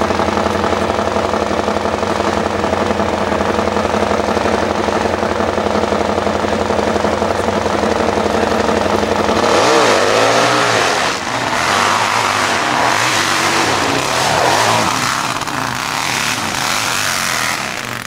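Pro hillclimb motorcycle engine running loud and steady at held revs for about nine seconds, then revving hard with the pitch swooping up and down as the bike launches and climbs.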